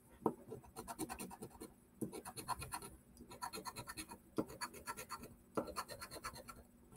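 Scratch-off lottery ticket being scratched: runs of quick, rapid scraping strokes, each about a second long, with brief pauses between.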